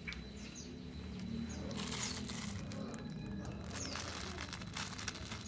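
A lovebird chirping: a few short, sharp calls that fall in pitch, with two longer bursts of noise about two and four seconds in.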